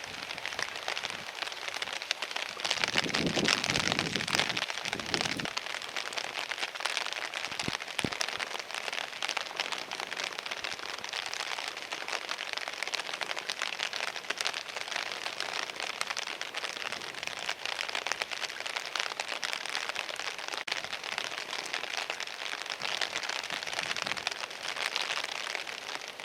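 Ocean surf breaking on the shore: a steady hiss of waves, with a louder, deeper surge about two to five seconds in.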